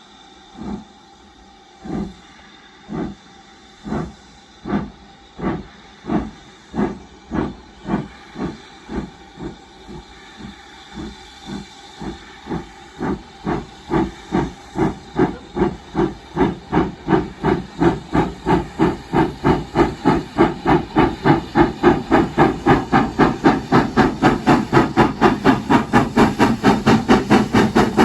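Steam locomotive starting away and accelerating, its exhaust chuffing about once a second at first and quickening steadily to three or four beats a second, louder and louder, over a steady hiss of steam.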